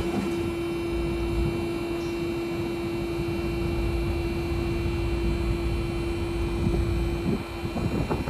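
Building maintenance unit's jib drive motor running with a steady hum while the jib arm is lowered in a down test, stopping about seven seconds in.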